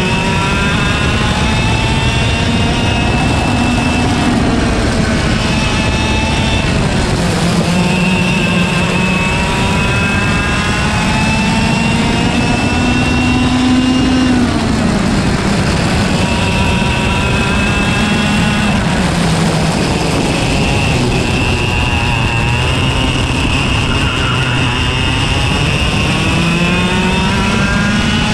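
Single-speed KA100 two-stroke kart engine heard from on board at racing speed, its pitch climbing steadily down each straight and dropping sharply off throttle into each corner, several times over.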